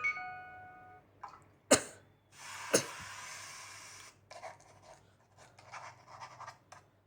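A Nokia Lumia 635 notification tone: a short chime of several notes at once, ringing out for about a second. Then come two sharp knocks, a burst of hissy, breathy noise and some scattered crackling, like handling and breathing close to the microphone.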